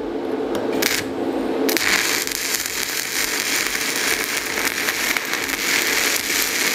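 Stick (MMA) welding arc burning on a 5 mm electrode at the welder's full 250 A output: a steady crackling hiss. About two seconds in it settles into a fuller, brighter crackle, and it breaks off right at the end.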